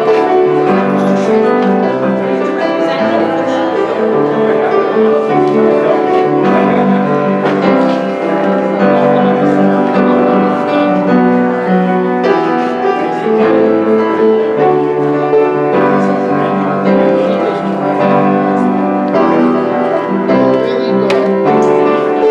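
Piano music played as a postlude while the congregation is dismissed.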